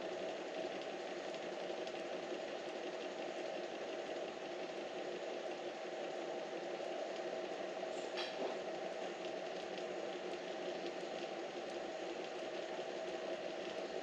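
A steady machine-like hum with a hiss over it, unchanging, with a brief faint chirp about eight seconds in.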